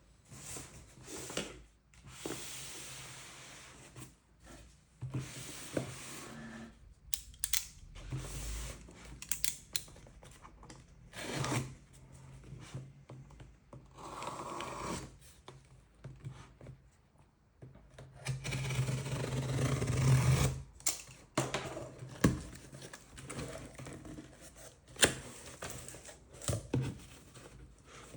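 Packaging being opened and handled: cardboard and paper rustling and sliding, with scattered clicks and knocks, and a longer, louder scraping stretch about two-thirds through.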